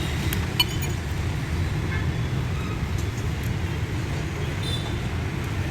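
Steady low rumble of motor vehicles, with a few light clicks; the sharpest click comes about half a second in.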